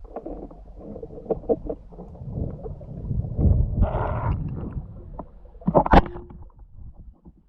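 Water moving around a camera during underwater spearfishing: a low rumble and gurgling with scattered small clicks and knocks. A louder rush of water comes about halfway through, and a single sharp click about six seconds in.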